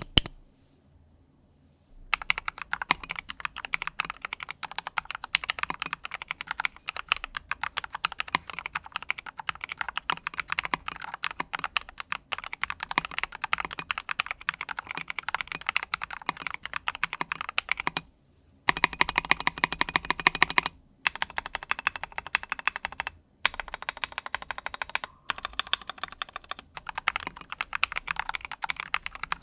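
Typing on a modded Maxfit 87 mechanical keyboard fitted with SA-profile PBT keycaps: fast, continuous keystrokes with a deep "thock". It starts about two seconds in and breaks off briefly a few times between runs.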